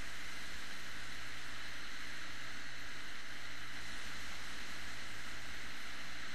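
Steady hiss with a low hum from a hard drive clock running, its platter motor spinning. There are no clicks or ticks.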